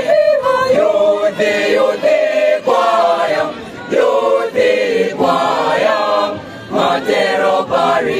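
Youth choir singing unaccompanied in several voice parts, in sung phrases with two short breaks between them.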